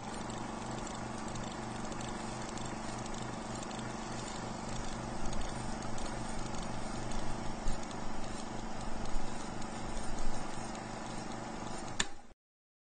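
Old film projector running: a steady mechanical clatter over a low hum and hiss, louder and more uneven in the middle.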